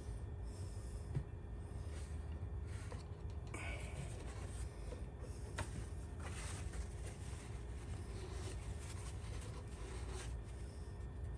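Motor oil pouring steadily from a plastic jug into a funnel in the engine's oil filler, faint, with a few light taps and rubs of the jug.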